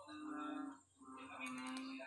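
Background music: two held melodic notes in short phrases, separated by a brief pause about a second in.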